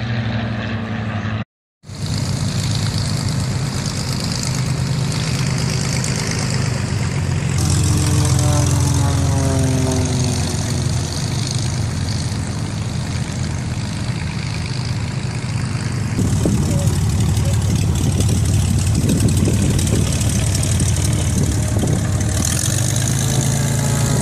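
Piston engines of Fokker S.11 Instructor propeller trainers running at taxi power close by, a steady low drone that grows louder about two-thirds of the way through as one passes near.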